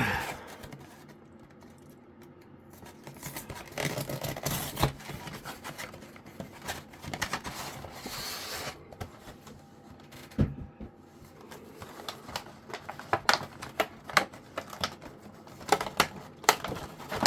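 Cardboard and plastic packaging of a Pokémon trading card box being worked open by hand: irregular scratching, tearing and rustling with many sharp clicks and taps, busier in the second half.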